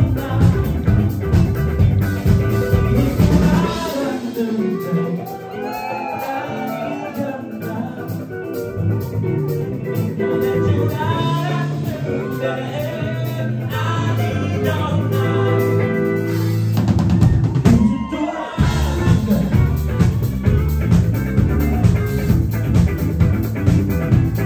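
Live band playing a song with drums, guitar and bass. About four seconds in the drums drop out for a quieter stretch of held bass and singing, and the full band with drums comes back in with about six seconds left.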